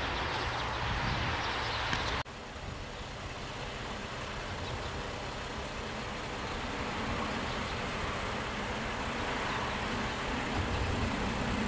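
Steady outdoor background noise with a low rumble of distant road traffic. It drops abruptly about two seconds in, then slowly builds again, growing stronger near the end.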